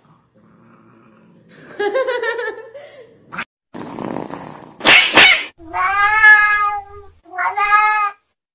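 Cats crying and hissing: a short cry about two seconds in, a sharp hiss about five seconds in, then two long drawn-out yowls near the end.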